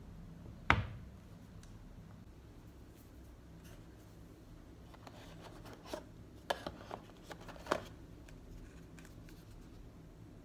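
A single sharp knock about a second in, as something is set down on the desk, then, from about five seconds in, a run of light clicks, taps and rustles as the white cardboard inserts and accessory pieces of a tablet's retail box are handled.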